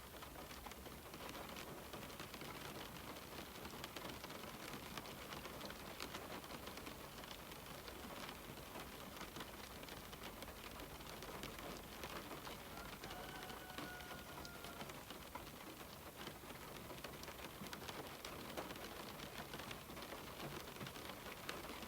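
Rain falling steadily on a window pane: an even hiss of rain with many small drop ticks against the glass.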